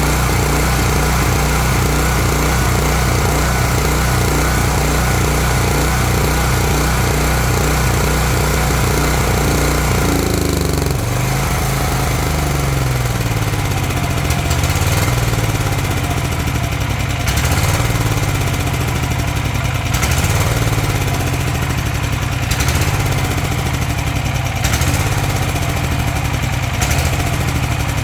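Honda generator engine running steadily on the last fuel in its carburettor after the fuel valve has been shut off; about ten seconds in its speed drops and it starts to hunt unevenly, the sign of it running out of fuel before it stalls.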